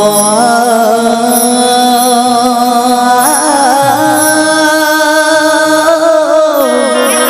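Male singer holding long, ornamented notes without words over a steady sustained keyboard accompaniment, amplified through a PA, with wavering turns in the melody about three seconds in.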